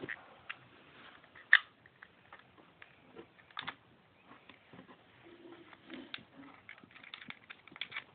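Scattered clicks and taps of a red dot sight being fitted onto a KWA MP9 airsoft gun, the loudest a sharp click about a second and a half in.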